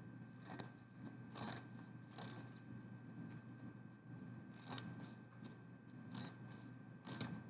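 Handwriting strokes scratching on a writing surface: a run of short, irregular scratches with brief gaps between them.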